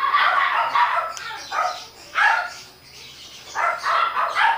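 A dog barking in the background: several short barks in irregular bunches.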